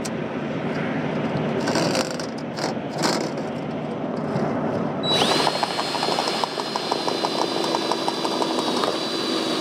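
Power drill driving a self-tapping screw through an exhaust-hose C-clamp into a truck's steel frame rail. The motor whine starts about halfway through with rapid ticking under it, then winds down near the end. Before it there are a few seconds of steady noise with a few knocks.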